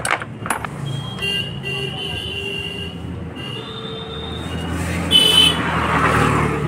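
Road traffic with vehicle horns tooting several times over a steady engine hum, and a few metal clicks right at the start.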